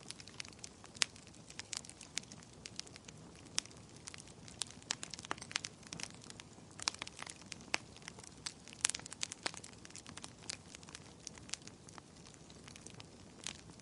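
Wood fire crackling, with irregular sharp pops and snaps over a soft low hiss.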